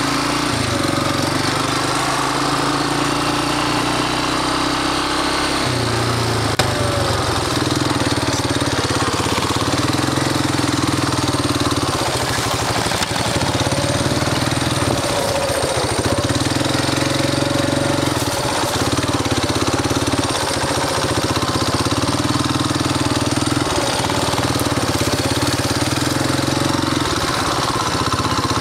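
Tao Tao 110cc ATV's small four-stroke single-cylinder engine running, revving up and easing off again and again as the throttle opens and closes around a track.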